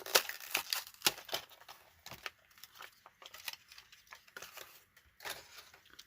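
Plastic blister pack of a Johnny Lightning diecast car being cracked open by hand: a run of irregular plastic crackles and snaps, thickest in the first couple of seconds, with another burst near the end.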